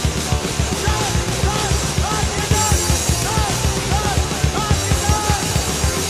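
Hardcore punk band recording: fast, dense drumming under distorted rock instruments. From about a second in, a line of short arching pitched notes runs over the top.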